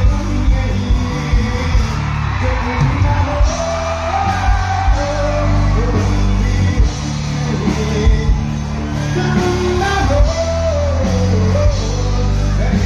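Live band playing on stage: electric guitars, drums and keyboard, with singing over a steady drum beat.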